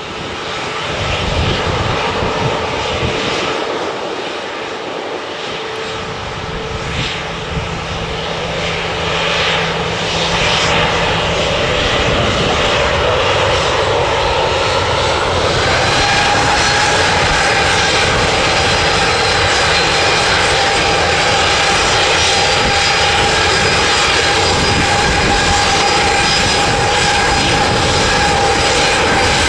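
A Boeing 737-800's CFM56-7B jet engines at taxi power: a steady rushing hum that grows louder as the aircraft comes closer. About halfway through, a whine of several steady tones comes in and holds.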